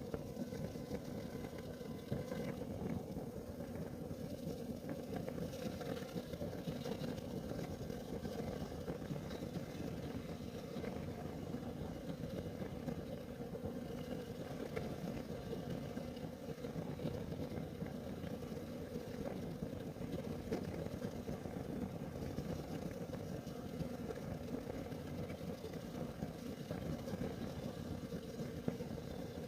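Kerosene heater burning with a steady low rumble, with a few faint ticks now and then.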